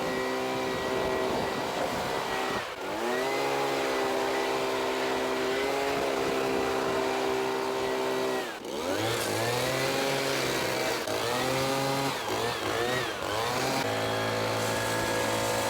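Leaf blower running steadily at high speed while blowing dust off a combine. Its pitch drops and climbs back up twice, about three seconds in and again about nine seconds in, with smaller dips after that.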